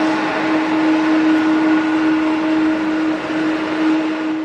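Airbus A350-900 jet climbing away after take-off: the steady roar of its two Rolls-Royce Trent XWB turbofans, with a constant low hum running through it.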